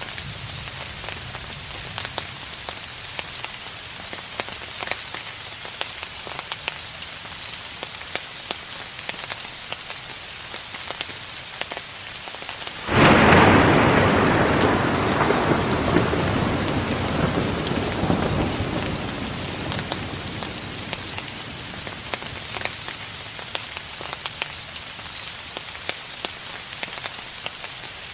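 Steady rain falling, with scattered drop ticks. About halfway through, a sudden clap of thunder breaks in and rumbles away, fading over several seconds back to the rain alone.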